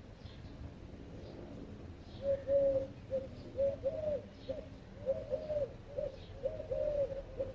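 A dove cooing: a series of short coo notes, some rising and falling in an arch, starting about two seconds in, with faint high chirps of small birds.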